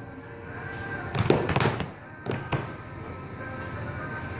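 Children's hands slapping a wooden tabletop in a rhythm game: four sharp slaps in two quick pairs.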